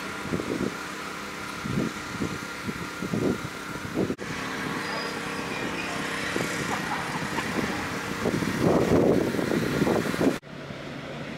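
Diesel freight locomotive idling with a steady engine hum and louder rumbles that swell near the end, then cut off abruptly to a quieter hum.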